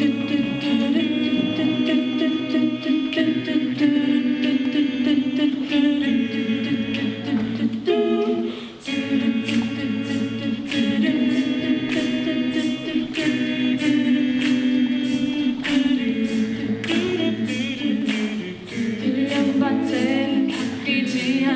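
Mixed-voice student choir singing a cappella in held, slowly changing chords. A steady ticking beat joins about nine seconds in.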